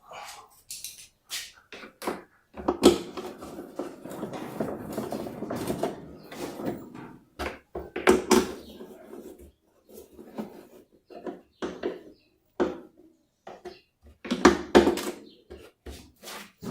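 Metal tools and parts knocking and clinking during hands-on washing-machine assembly work, with a few seconds of rattling and scraping about three seconds in.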